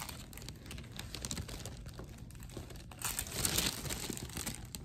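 Paper liner on a doctor's exam table crinkling as a baby shifts and plays on it. Small scattered rustles, with a louder crinkle about three seconds in.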